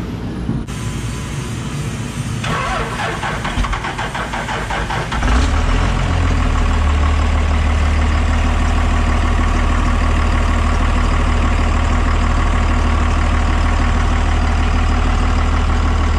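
Cummins turbo-diesel engine cranking on the starter for a few seconds, then catching about five seconds in and settling into a steady, loud idle. This is the first start after a head-stud job.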